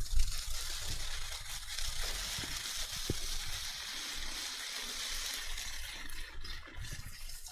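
Shredded beef, mushrooms and onions sizzling steadily in a frying pan over high heat as the cooking juices and butter reduce into a sauce. A light knock comes right at the start.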